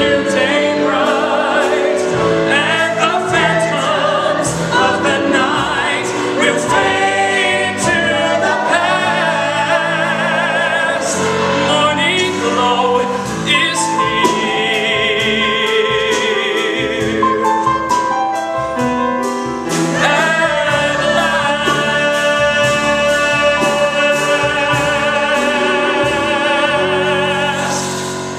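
Musical-theatre song: a male soloist sings with a mixed vocal ensemble behind him, accompanied by piano, bass and drums. Long held notes with vibrato come in the second half, and the sound fades near the end.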